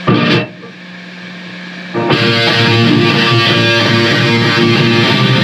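Distorted electric guitar through an amplifier: one short chord strike, then a low steady hum, then loud continuous playing that starts about two seconds in.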